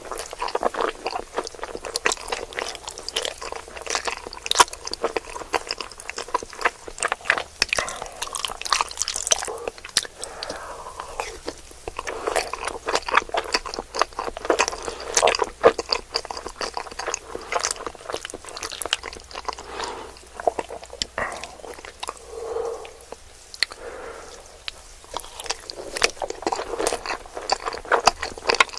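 A person chewing a mouthful of macaroni and cheese close to the microphone, with many quick, irregular mouth clicks.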